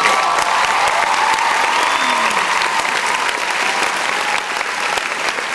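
Crowd clapping and cheering, with one long high call rising at the start and slowly falling away over the first few seconds.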